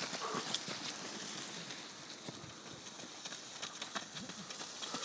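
Running footsteps and mountain bike tyres on a wet dirt-and-gravel track as runners and cyclists pass close by: uneven footfalls over a steady hiss, thinning out in the middle and picking up again near the end.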